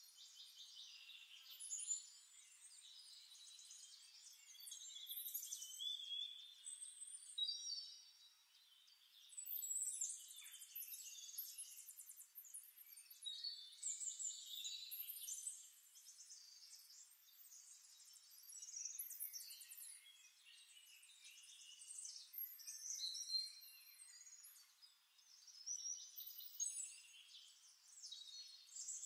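Faint, busy birdsong: many overlapping high chirps, quick whistled glides and trills that swell and fade every few seconds, thin and with no low end.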